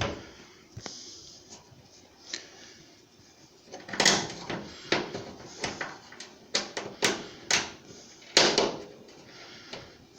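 Irregular knocks, clicks and clanks of the dryer's sheet-metal panels and screws being handled during reassembly, several sharp hits in a row with the loudest about four and eight seconds in.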